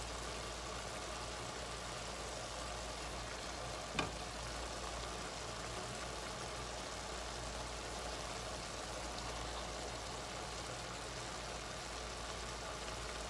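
Diced vegetables cooking in oil and their own juices in a frying pan, a steady low sizzle over a constant low hum, with a single sharp click about four seconds in.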